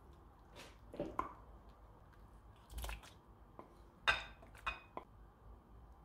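Food being served into a ceramic bowl: a metal slotted serving spoon knocks and clinks against the bowl and pot, with soft wet scoops of creamy cabbage and potatoes. There are a handful of separate clinks, the sharpest about four seconds in.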